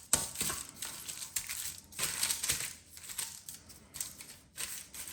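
Kosher salt being sprinkled over raw chicken pieces, the grains landing in a light, irregular scatter that comes in several uneven waves.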